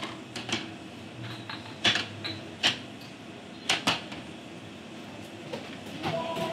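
Restaurant kitchen clatter: a string of sharp clinks and knocks from ceramic mugs and dishes being handled and the swinging doors, over a steady background hum. Near the end a steady two-pitch tone sets in.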